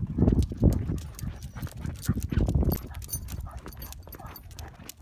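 Footsteps and dogs' paws on a concrete sidewalk during a leashed walk: irregular clicks and low thumps, heaviest about the first second and again around two to three seconds in.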